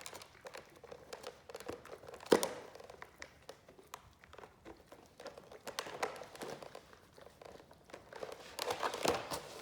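Great Danes gnawing on a jumbo bone: irregular crunches and clicks of teeth on bone, with one loud crack about two seconds in and busier crunching near the end.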